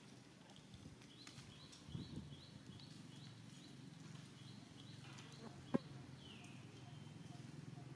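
Faint outdoor ambience: a quick, even series of short high chirps, about two and a half a second, then a single sharp click about three quarters of the way through, followed by a short falling high call.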